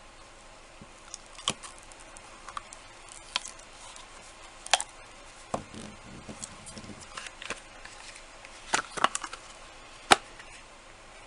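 Scattered light clicks and taps from handling a hard cured resin casting, small knocks of resin against a work surface, with the loudest knock about ten seconds in.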